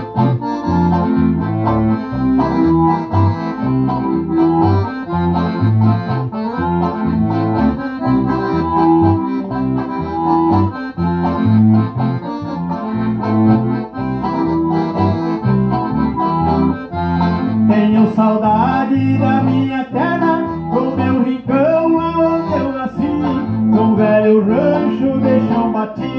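Accordion music with guitar accompaniment, carried by a steady, regular pulse of low bass notes.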